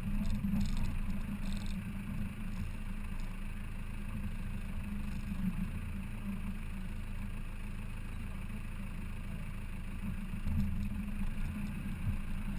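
Off-road 4x4's engine running steadily as it drives slowly, heard from inside the cabin as an even, low drone.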